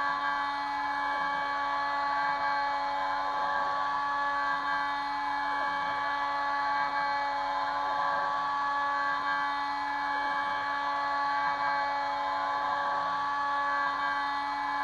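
Kress FME 800 router spindle running at about 11,000 rpm on a Stepcraft 2/420 CNC machine, milling aluminium: a steady whine with several fixed tones that holds without a break.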